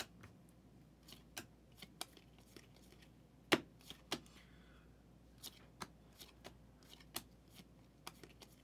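Contenders football trading cards being flipped one by one through a hand-held stack: faint, irregular clicks and snaps of card edges, the loudest about three and a half seconds in.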